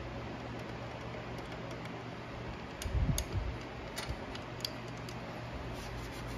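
Steady shop fan hum, with a few light metallic clicks and a low thump about three seconds in from hands handling the Dana 30 differential's ring gear carrier and loose bolts and washers.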